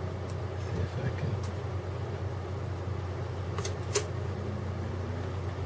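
Steady low background hum, with two light clicks of fingers handling the laptop's parts about three and a half and four seconds in.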